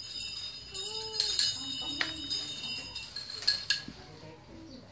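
Balisong (butterfly knife) being flipped: its metal handles and blade clink and click against each other, with a few sharp clacks about 1, 2 and 3.5 seconds in, the last as the knife closes, then it goes quieter.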